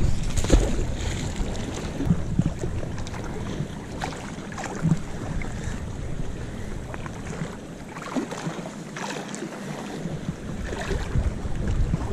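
Wind buffeting a chest-strapped GoPro's microphone as a low rumble, with scattered short rustles and knocks as a magnet-fishing rope is thrown out and hauled back in by gloved hands.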